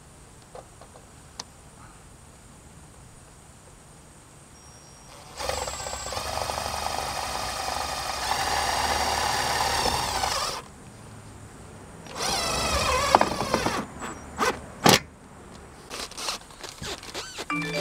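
Cordless drill driving screws into metal roofing panels: one run of about five seconds that gets louder partway through, a pause, then a shorter run of about a second and a half. A few sharp knocks on the metal roof follow near the end.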